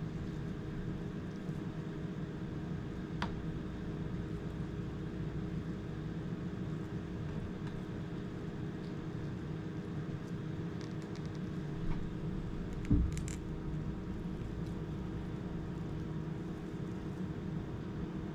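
A steady low mechanical hum with several fixed pitches, with a few light clicks and a soft low thump about thirteen seconds in.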